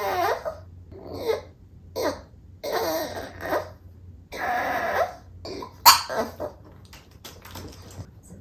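Boston Terrier whining and grumbling in a string of short vocal bursts that bend up and down in pitch, demanding to be let out. A sharp, short sound about six seconds in is the loudest moment.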